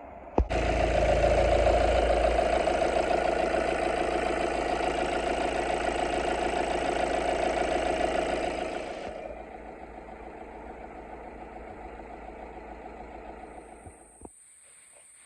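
BMW 118d four-cylinder diesel engine starting up about half a second in and running at idle, at its loudest for the first couple of seconds, quieter after about nine seconds, then cutting off abruptly near the end. This is the test run after an oil change and new belts.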